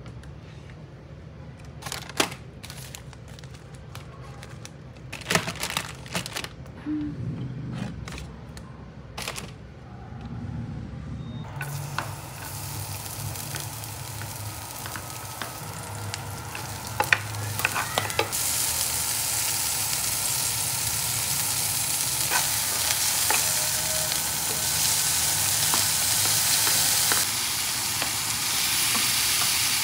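Clinks and knocks of kitchenware, then food starts sizzling in a hot frying pan about twelve seconds in. The sizzle grows louder about six seconds later, with a few more clinks over it.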